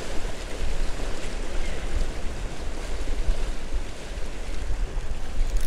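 Waves washing and splashing against jetty rocks, with gusty wind buffeting the microphone in a low, uneven rumble.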